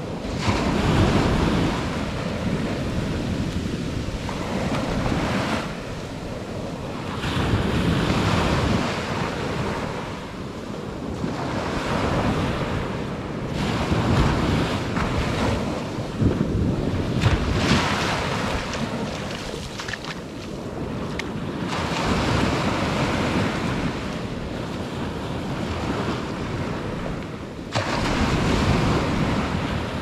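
Ocean waves breaking and washing up a sandy beach, the surf swelling and easing every few seconds. Wind rumbles on the microphone throughout.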